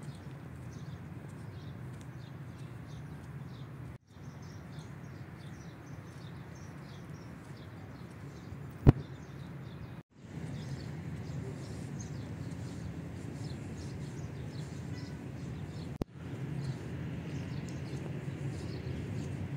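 Outdoor park ambience recorded through a phone's microphone while walking: small birds chirping over a steady low rumble. The sound cuts out briefly three times, and there is one sharp click a little before halfway.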